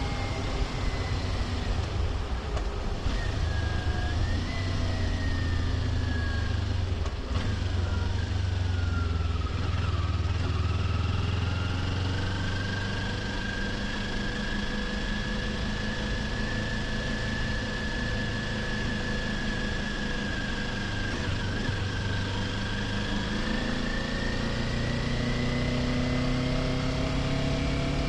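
Kawasaki Ninja 400's parallel-twin engine running while riding, with a rush of wind noise. The engine pitch falls a few seconds in, holds steady for a long stretch, then rises again near the end.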